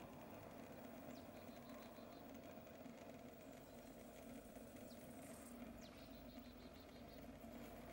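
Faint outdoor ambience: a steady low hum, with two short runs of rapid, high chirps, about a second in and again about six seconds in.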